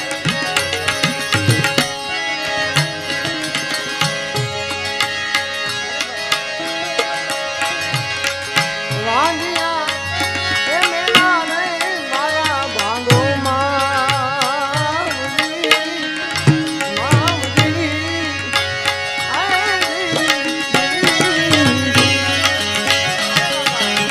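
Live Gujarati devotional folk music: harmoniums holding a steady drone and melody over a percussion beat. From about nine seconds in, a man sings wavering, ornamented vocal runs over it, twice.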